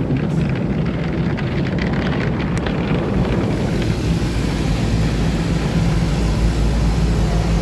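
Automatic car wash spraying water and foam onto the car, heard from inside the cabin as a dense rain-like drumming on the glass and body. A steady low machine hum grows stronger about halfway through.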